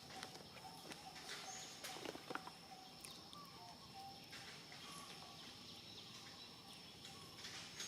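Faint outdoor ambience: a steady high thin whine runs throughout, with scattered soft clicks and a few short chirps.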